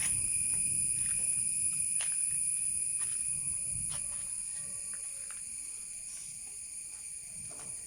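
Insects chirring steadily in several high, unbroken tones, with a few faint clicks and a low rumble that fades out over the first half.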